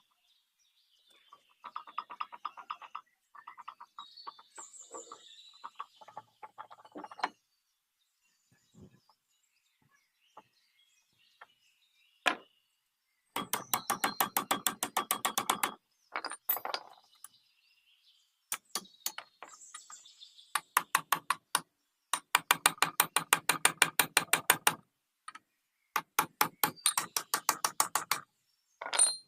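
A ratchet wrench clicking rapidly and evenly, about ten clicks a second, in three runs of two to four seconds each, as bolts are worked on the old sugarcane juice machine. Softer, scattered clicks and scrapes of tool work come before the runs.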